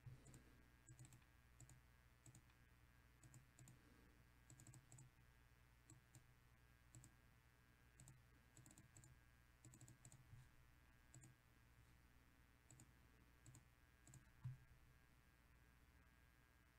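Faint computer mouse clicks at irregular intervals, often in quick pairs, over near silence, with one soft thump about fourteen seconds in.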